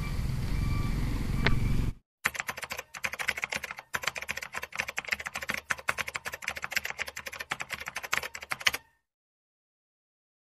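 For about two seconds a steady sound with repeating beeps runs and then cuts off abruptly. After that comes about six and a half seconds of fast, uneven clicking like typing on a keyboard.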